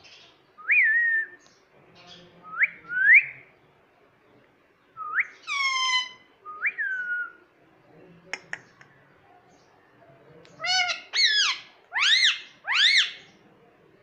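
Indian ringneck parakeet giving a series of about ten loud whistled calls, each a short rising or arching note, some sliding down at the end. There are a couple of sharp clicks about eight seconds in, and a quicker run of four arching calls near the end.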